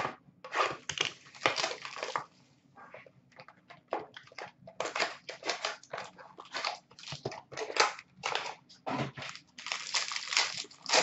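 Hockey card box and pack opened by hand: cardboard tearing and a foil pack wrapper being ripped and crinkled, in quick irregular bursts of rustling and crackling.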